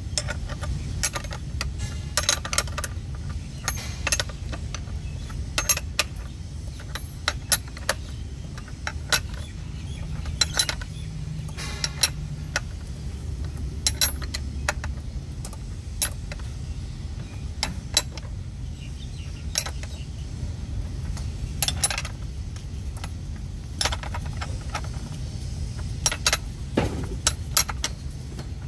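Steel spanners clicking and clinking on nuts and bolts, and against each other, as the bolts of a PVC pipe flange are tightened: irregular sharp metal clicks, a few each second at times, over a steady low rumble.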